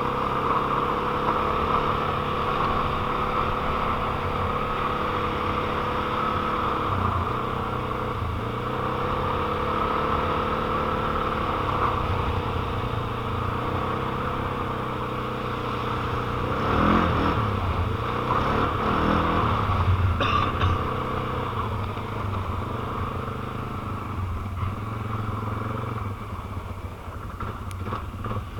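A quad's (ATV's) engine running as it is ridden, mostly at a steady pace, with its pitch dipping and rising a few times as the throttle changes. It gets louder with a couple of throttle-ups about two-thirds of the way through, then eases off near the end.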